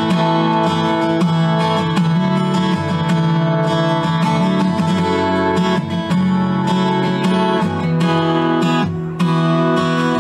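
Steel-string acoustic guitar strummed in chords, the instrumental intro of a country song before the vocal comes in.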